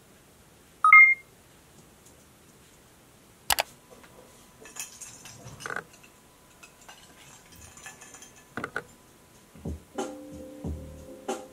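A short two-note electronic beep, a lower tone then a higher one, about a second in, followed by scattered soft clicks and rustling. Near the end, music with a bass beat and repeated notes starts up.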